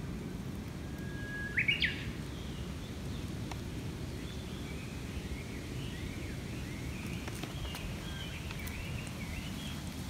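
Japanese bush warbler singing its 'hoo-hokekyo' song about a second in: a held whistle, then a quick rising flourish. Fainter twittering bird notes follow, over steady low background noise.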